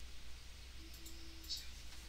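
Faint rustling and a few soft clicks of tape being handled and pressed down by fingers, loudest about a second and a half in, over a steady low hum.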